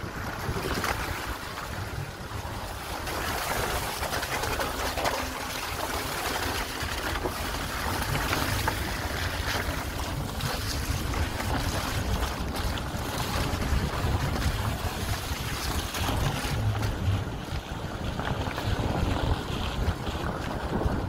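A car driving along a mountain road: a steady low engine and road rumble, with wind buffeting the microphone.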